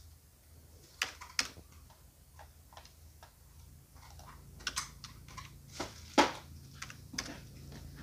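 Typing on a computer keyboard: scattered key clicks at an irregular pace, the loudest a little after six seconds in, over a faint low hum.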